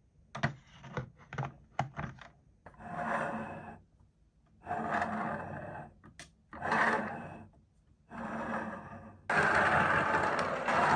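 Hands handling toy packaging: a few light clicks, then bursts of scraping and rustling about a second long each, becoming continuous and louder near the end.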